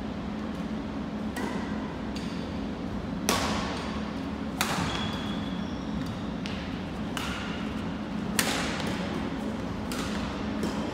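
Badminton rackets striking a shuttlecock during a rally: several sharp hits a second or more apart, echoing in a gymnasium, over a steady low hum.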